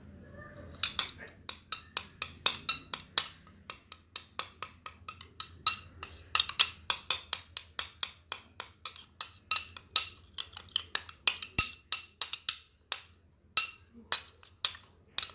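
A spoon clicks against a small dish in quick, uneven strokes, about four a second, stirring a paste of tomato, lemon juice and toothpaste.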